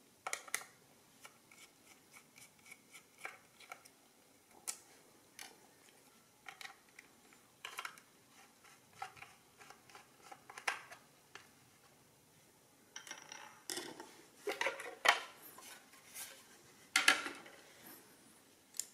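Small screwdriver working screws out of the plastic case of a Beaver mechanical adding machine: scattered light clicks and taps. About thirteen seconds in, louder scraping and clattering as the metal mechanism is slid out of its plastic base.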